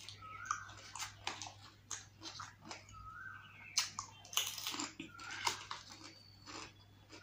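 Close-up eating of dahi puri: crisp puri shells crunching and wet chewing, in a quick run of small clicks and crackles. A short rising squeak comes three times at roughly two-and-a-half-second intervals.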